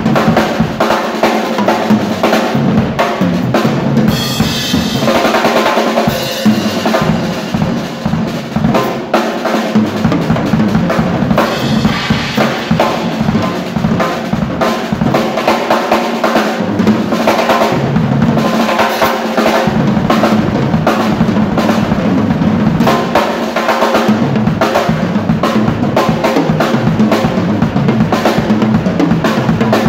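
A large Sonor rock drum kit played hard and continuously: rapid snare, bass drum and tom strokes, with crash cymbals washing out about four seconds in and again around twelve seconds.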